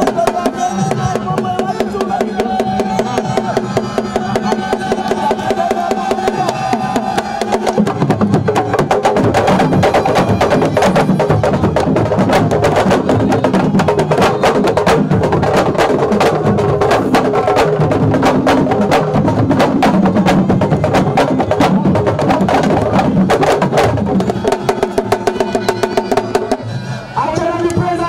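Fast drumming on sabar drums, denser and heavier from about eight seconds in, with a steady held tone sounding over the drums at the start and again near the end.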